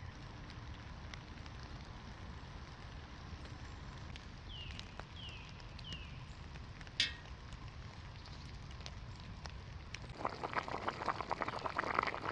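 Wet-forest ambience with scattered faint raindrop ticks and three short falling bird calls about halfway through. From about ten seconds in, a pot of pea stew bubbles and spits at a hard boil on a camp stove.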